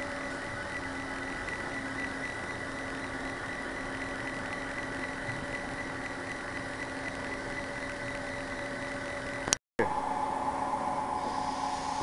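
Hankook Hanturn 95M CNC live-milling lathe running: a steady machine hum with a high whine held over it. About ten seconds in there is a sharp click and the sound cuts out for a moment, then it returns with a changed tone.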